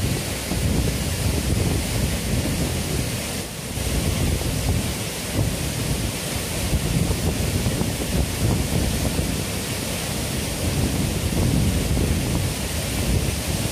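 Waterfall running in heavy flow: a steady rushing of water with a strong low rumble, dipping briefly about three and a half seconds in.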